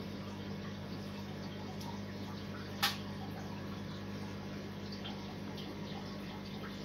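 Steady trickling and dripping of water circulating through a sumped aquarium, over a constant low hum. A single short click sounds about three seconds in.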